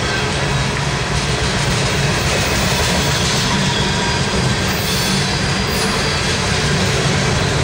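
Freight train of refrigerated boxcars rolling past at a steady speed: a continuous, loud noise of steel wheels on the rails.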